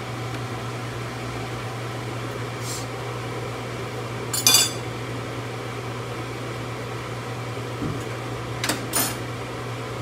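Metal kitchenware being handled: a few short clinks and clatters of a spoon and cookware over a steady low hum. The loudest clatter comes about halfway through, and two quick ones come near the end.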